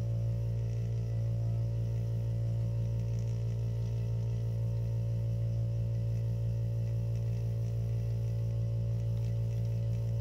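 Steady electric hum with a low, slightly pulsing drone that holds unchanged.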